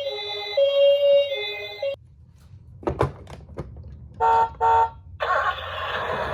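Toy ambulance's electronic two-tone siren alternating between a high and a low note for about two seconds, then stopping. A few sharp clicks follow, then two short beeps and a harsh hissing electronic sound near the end.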